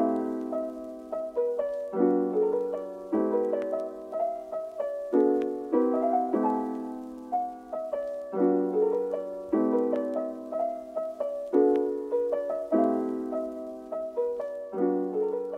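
Background music: a piano playing slow chords, one struck about every second and left to ring and fade.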